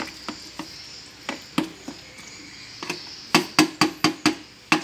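Metal spoon stirring thick minced-shrimp batter in a plastic container, knocking against its sides. Scattered taps at first, then a quick run of louder taps, about five a second, in the last second and a half.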